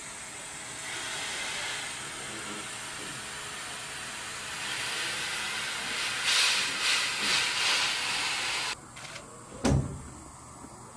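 Steady hiss of air flowing through a full pressure suit and its test console, growing louder past the middle and cutting off suddenly near the end. About a second later comes a single dull thump.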